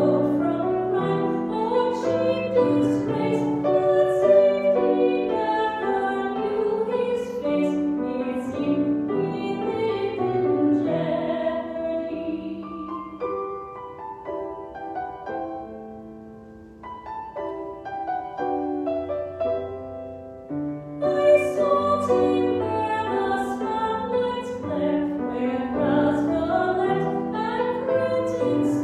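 A woman singing a hymn solo with vibrato over piano accompaniment. The music softens for a few seconds about halfway through, then the singing comes back at full strength.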